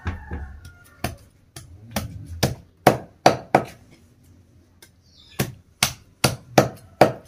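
Heavy cleaver chopping into raw chicken pieces on a wooden board: a run of sharp chops about three a second, a pause of about a second and a half midway, then another quick run of chops near the end.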